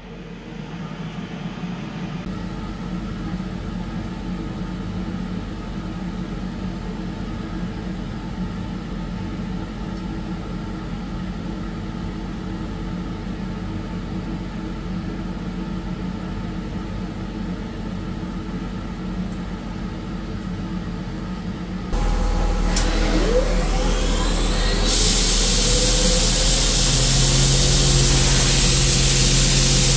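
Hurco VM5i CNC machining centre running with a steady hum. About two-thirds of the way in, a loud hiss of coolant spray starts suddenly along with a rising whine of the spindle spinning up. The hiss grows louder a few seconds later, and the spindle then holds a steady tone at its set 8000 rpm.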